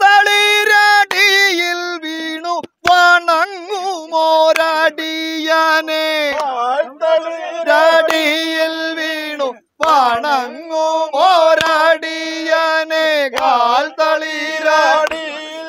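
Vanchipattu, the Kerala boat song, sung in a chanting melody of long held, sliding notes, phrase after phrase with brief breaks between them.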